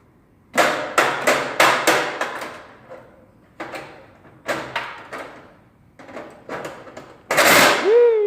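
A series of sharp knocks or bangs, about five in quick succession and then a few scattered ones. Near the end comes a loud call that rises and then falls in pitch.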